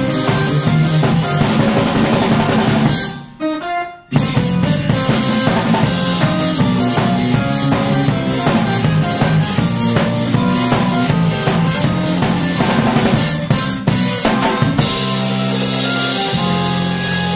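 Live band music led by a drum kit played in a busy pattern of snare, bass drum and cymbal hits, with electric bass underneath. About three seconds in the band stops dead for about a second, then crashes back in; near the end the bass holds steady notes under a wash of cymbals.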